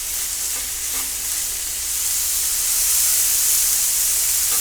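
Chicken thighs in green chile sauce sizzling on a hot Blackstone flat-top griddle. The steady hiss grows louder about two seconds in.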